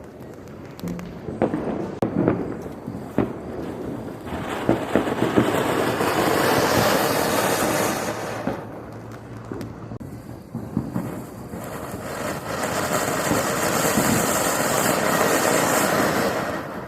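Flowerpot (anar) fountain fireworks spraying sparks: a steady rushing hiss with scattered crackles and pops. It builds about four seconds in, eases off in the middle, then swells again at around twelve seconds before falling away near the end.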